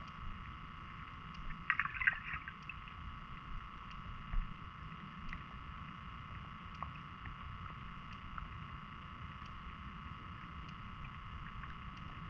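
Underwater ambience picked up by a submerged GoPro camera: a steady muffled hiss over a low rumble, with scattered faint clicks and a short crackle about two seconds in.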